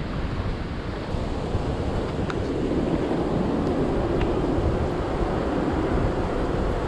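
Strong wind buffeting the microphone: a steady, rumbling rush of noise.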